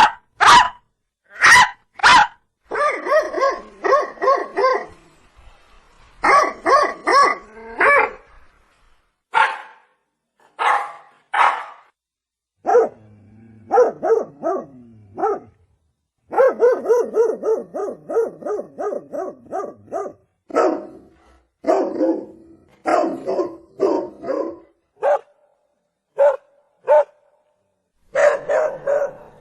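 A dog barking repeatedly. Single sharp barks alternate with runs of quick barks, with short pauses between the groups.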